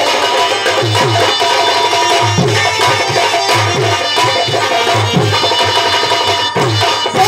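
Folk-theatre stage accompaniment: a hand drum beating a steady rhythm of bass strokes that slide down in pitch, about three a second, under held melody notes.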